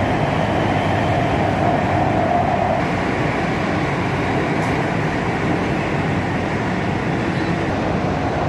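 Cabin noise inside an underground metro train running through a tunnel: a steady rumble and rushing, with a higher hum that fades out about two and a half seconds in.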